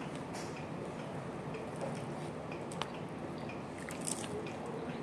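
A person eating rice with her fingers: wet squishing of rice soaked in vegetable-curry broth and chewing, with small scattered clicks over a steady hiss.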